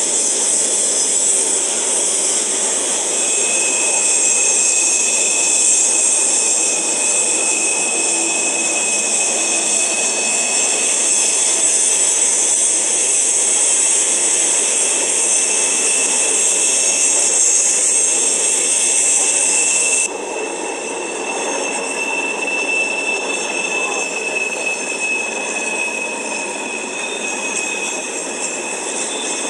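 Freight train of covered hopper cars rolling past on a tight curve: steady rumble and hiss of steel wheels on rail, with a thin, steady high wheel squeal from about three seconds in. About two-thirds through, the high hiss drops off suddenly and the sound becomes quieter.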